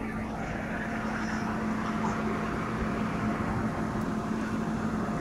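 Steady mechanical drone with a constant low hum, and faint voices in the background.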